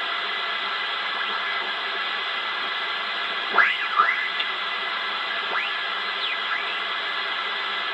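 Shortwave transceiver receiver hiss from a Siltronix Comanche 1011D as its main tuning dial is turned, with off-tune stations sliding past as brief whistles swooping up and down in pitch, two about three and a half seconds in and fainter ones a couple of seconds later.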